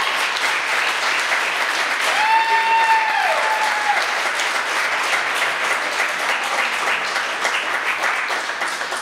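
Audience applauding steadily, with one voice calling out a cheer about two seconds in; the applause eases off near the end.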